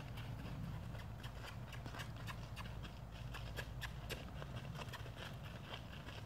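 Mule's hooves stepping at a walk on a gravel driveway: irregular crunching clops, a few a second, over a steady low rumble.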